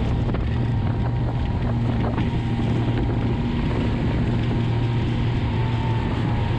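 Twin Honda BF250 3.6-litre V6 outboards running steadily at about 3500 rpm at cruising speed, a steady low engine hum, with wind on the microphone.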